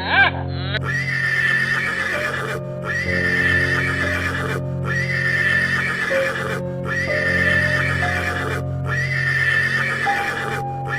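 Horse whinnying over background music, the loudest call right at the start, followed by a loop of horse sound that repeats about every two seconds, each broken by a short gap.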